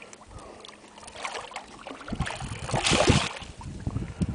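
Hooked redfish thrashing and splashing at the water's surface beside the boat, with one loud splash about three seconds in.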